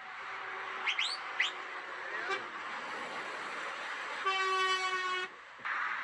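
Lorry air horn blowing one steady, rich note for about a second, over the hiss of passing highway traffic. Two short high chirps come about a second in.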